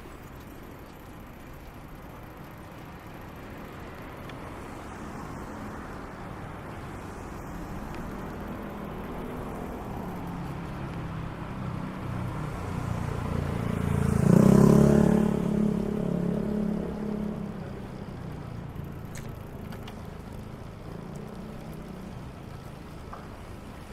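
A motor vehicle passing close by on the street. Its engine grows steadily louder to a peak about 14 seconds in, then fades away.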